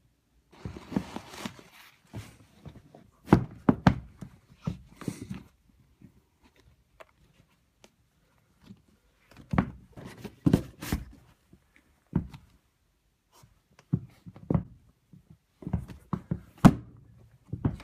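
Tan leather wingtip shoes handled on a hardwood floor: a short rustle about a second in, then scattered thunks and taps as the shoes are set down, laced and stepped in.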